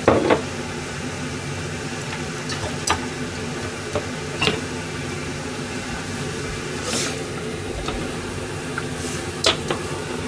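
Pans of seasoned liquid simmering on a gas stove, a steady bubbling hiss over a low hum, with a few short light clicks and knocks scattered through.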